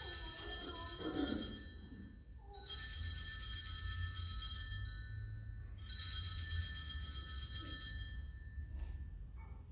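Altar bells shaken three times, each a jingling ring of about two and a half seconds, marking the elevation of the chalice at the consecration.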